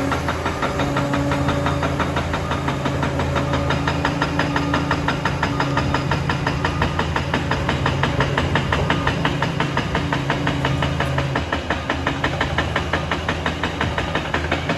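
Liebherr 746 crawler dozer's diesel engine running steadily under a fast, even clatter. The engine note drops a little about eleven seconds in.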